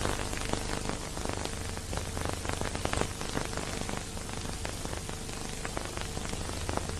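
Dense crackling and hiss over a steady low hum, with no music: the surface and transfer noise on the soundtrack of an old silent-film print.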